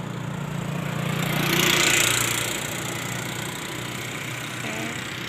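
A motor vehicle passing by: engine and road noise swell to a peak about two seconds in and fade away, over a steady low hum.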